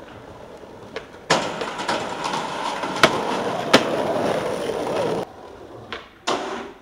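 Skateboard wheels rolling loudly over rough brick paving, with two sharp clacks of the board striking the ground in the middle. The rolling cuts off suddenly, and another stretch of rolling starts near the end.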